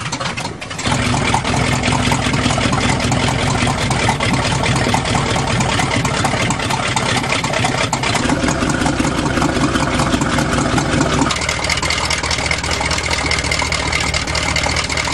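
1977 GMC truck's carbureted engine idling as it warms up after a cold start, its choke now working with the pull-off rod re-bent. The engine comes in loud about a second in and runs steadily. Its tone shifts around eight seconds, and a thin steady high whine joins it near eleven seconds.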